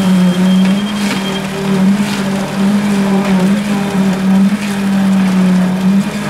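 Electric poker vibrator running in wet concrete during a slab pour: a loud, steady hum whose pitch dips slightly now and then as the poker works through the mix.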